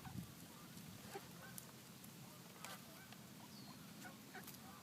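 Faint, scattered bird calls, short and spaced out, with a few light ticks over quiet outdoor background.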